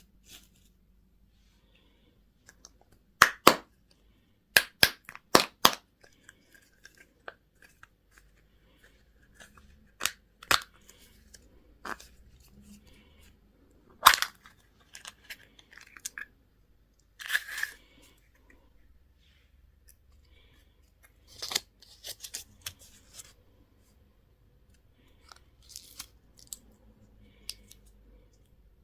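Packaging of candy toys being handled and opened: a series of sharp plastic snaps and crinkles, some in quick clusters, with softer rustling between them.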